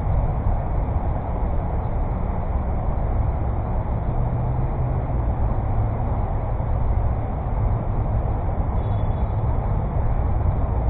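Steady low rumbling noise, with no distinct ball strikes.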